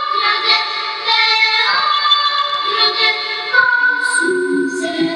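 Recorded music opening a song: a female voice sings long held notes over the accompaniment.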